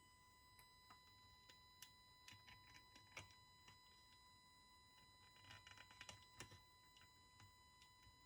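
IKEA TRÅDFRI 30 W LED driver giving off a faint, steady high-pitched coil whine with a buzzy edge, with a few faint irregular ticks over it.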